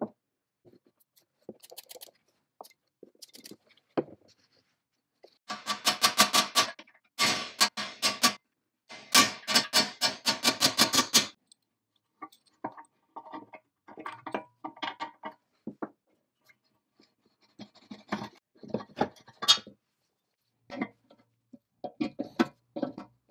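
Metal clicks and taps from the cast-iron gears and hand tools being worked on during disassembly. Three stretches of rapid, even clicking fall in the middle, followed by scattered lighter taps.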